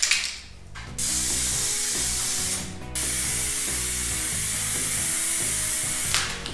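Aerosol can of Raptor 2K two-component textured coating spraying in two long bursts, a hiss of about a second and a half, a brief break, then about three seconds more. A short puff comes just before the first burst.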